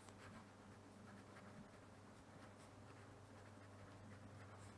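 Near silence: faint scratching of a pen writing on paper, over a low steady hum.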